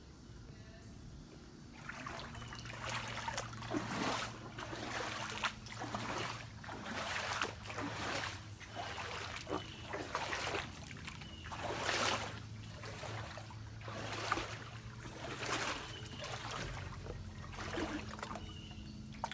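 Footsteps wading through shallow floodwater, a splashing slosh with each step about once a second.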